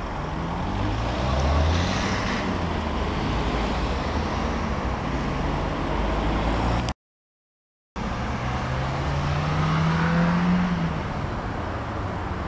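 Road traffic: cars passing, with engine notes that rise in pitch as they accelerate, once early on and again near the end. The sound cuts out completely for about a second around the middle.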